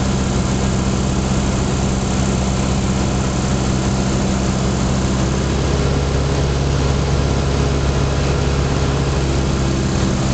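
Single-engine Cessna's piston engine and propeller droning steadily, heard inside the cabin with a rushing air noise; the tone shifts a little about halfway through.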